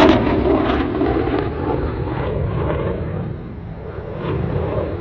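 Eurofighter Typhoon's twin Eurojet EJ200 turbofans in afterburner: loud, crackling jet noise from the climbing fighter, loudest at the start and fading over the next few seconds, swelling briefly again near the end.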